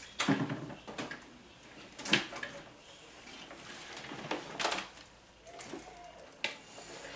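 Things being handled and moved about: a few separate knocks and scrapes, the sharpest about two seconds in.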